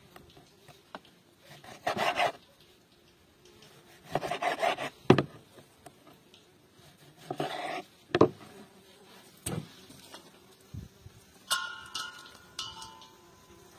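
Kitchen knife sawing through raw offal on a wooden cutting board: three short bursts of cutting, about two, four and seven seconds in, with the blade knocking on the board several times.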